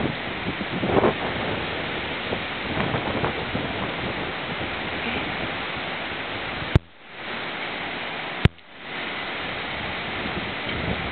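Gusty wind buffeting a phone's microphone: a steady rushing noise that swells in gusts. Two sharp clicks about seven and eight and a half seconds in, each followed by a brief dip in the noise.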